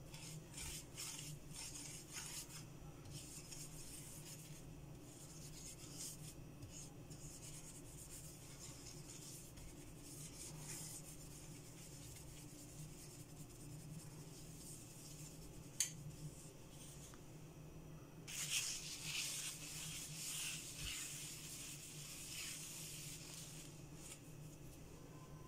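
Wooden spatula rubbing and scraping over a nonstick frying pan, spreading melted butter. The scraping is faint and scratchy, with one sharp click about two thirds of the way through and a louder bout of scraping soon after.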